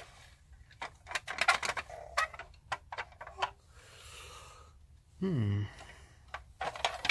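Plastic parts of a 1980s MB Bigtrak toy clicking and rattling as they are handled and pulled apart during disassembly. There is a quick cluster of sharp clicks in the first few seconds, then a few scattered taps.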